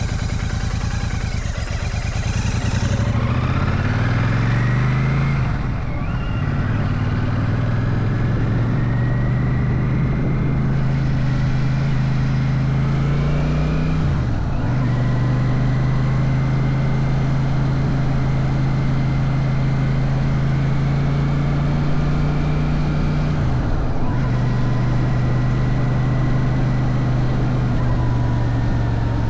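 Royal Enfield Shotgun 650's parallel-twin engine pulling away, rising in revs, then going up through the gears with a brief break in the engine note at each shift, about 6, 14 and 24 seconds in, holding a steady note between shifts. Road and wind rush run under it.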